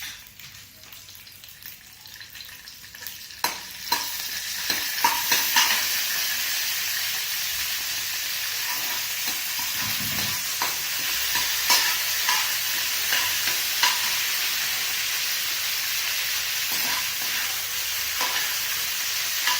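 Mustard seeds and curry leaves sizzling in hot oil in a pan while being stirred. The sizzle grows louder about four seconds in and then holds steady, with scattered sharp clicks.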